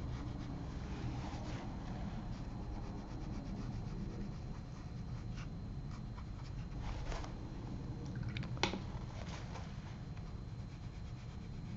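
Round watercolor brush stroking and dabbing on paper: a soft, scratchy rubbing in short strokes over a steady low hum, with one sharp click about two-thirds of the way through.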